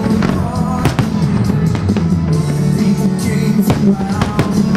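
Loud music with a steady beat, and fireworks shells bursting with several sharp bangs through it.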